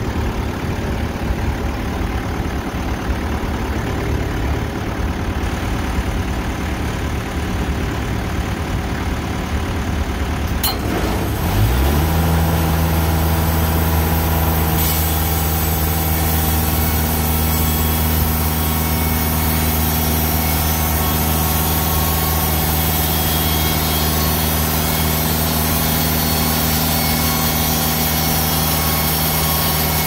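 Band sawmill engine idling with a low, rough rumble. About eleven seconds in, after a sharp click, it revs up quickly and holds a steady high speed, the throttle-up that brings the band blade up to speed.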